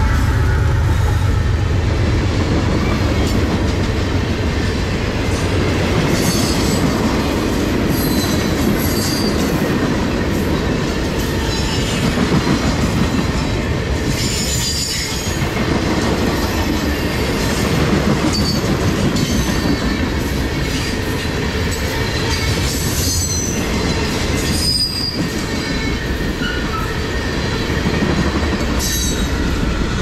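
Freight cars of a BNSF rock train rolling past: a steady noise of steel wheels on rail, with short high-pitched wheel squeals here and there.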